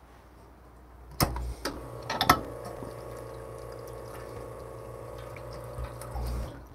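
A few sharp clacks, then a small electric motor or pump runs with a steady hum for about five seconds and cuts off suddenly near the end.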